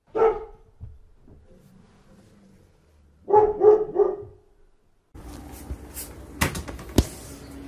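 Yorkshire terrier puppy barking: one bark at the start, then three quick barks a few seconds later. From about five seconds in there is a steady room noise with two sharp knocks.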